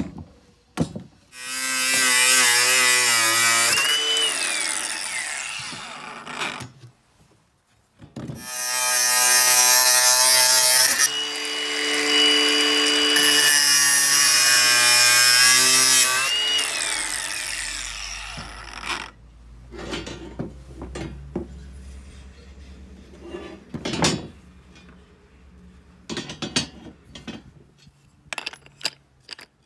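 AEG brushless cordless angle grinder spinning up and cutting into the cast-iron Singer sewing machine treadle frame, in two runs of several seconds with a harsh hiss over the motor whine. Each run winds down with a falling whine. After that come scattered clicks and knocks.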